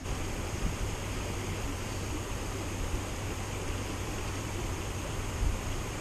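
Steady rushing hiss of a shallow mountain stream flowing over a riffle.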